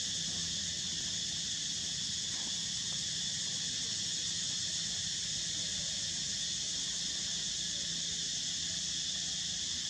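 Steady chorus of insects: a constant high-pitched shrilling that never breaks or changes.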